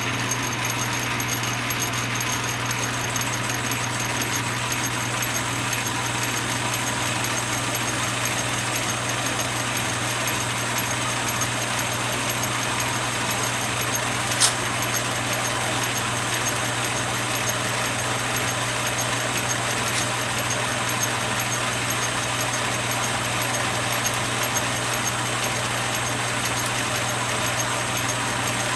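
Atlas metal lathe running steadily under power feed, taking a cut, its feed driven through a gear train that includes a plastic reverse gear; a steady motor hum with an even hiss over it. One sharp click about halfway through.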